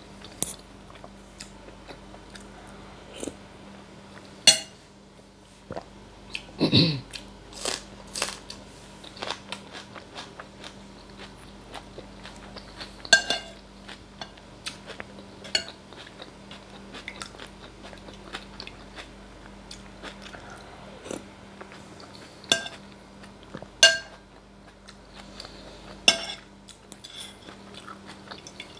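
Close-miked chewing of meatball soup, with a metal spoon clinking sharply against the bowl about five times. A short falling sound comes about seven seconds in.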